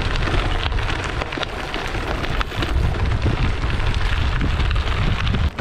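Gravel bike tyres rolling over a gravel path: a steady crunching hiss with a low rumble underneath, which drops away suddenly at the very end.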